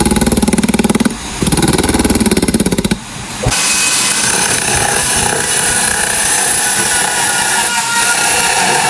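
Power tools working wood: a rapidly pulsing, engine-like buzz with a brief dip about a second in, giving way about three seconds in to a steady hissing whir of cutting.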